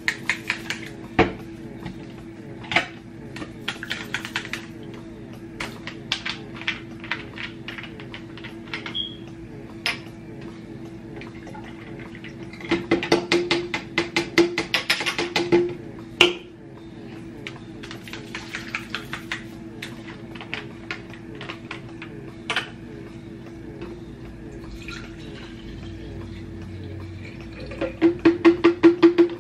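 Plastic breast-pump bottles and a plastic pitcher being handled as milk is poured between them: scattered clicks, taps and knocks of plastic, with two spells of quick clattering, over a steady low hum.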